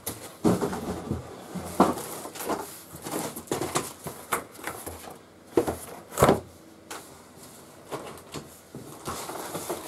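Cardboard packaging being handled inside a large shipping box: irregular rustles, scrapes and knocks as cardboard pieces are lifted out past plastic wrap, with the loudest thump about six seconds in.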